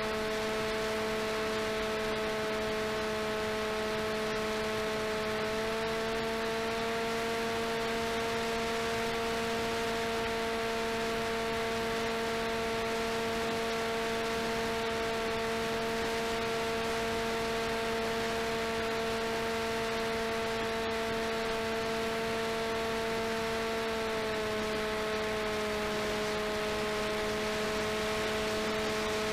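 RCTimer 5010 630KV brushless outrunner motor and propeller of an FPV delta wing in flight, heard through the onboard camera's microphone: a steady hum over wind hiss. The pitch steps up slightly about six seconds in and drops back near the end, as the throttle changes.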